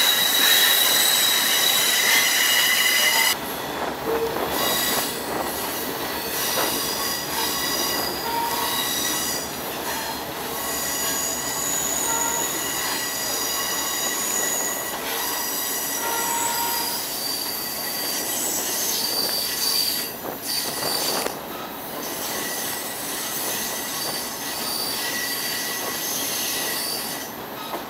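Train wheels squealing against the rails over the train's rolling noise, with several high, steady tones that come and go. The squeal is loudest for about the first three seconds, then drops a little.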